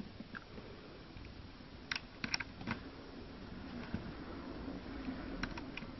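Faint small clicks as a neon bulb's wire leads are pushed into the holes of a plastic solderless breadboard: a few about two seconds in and a couple more near the end.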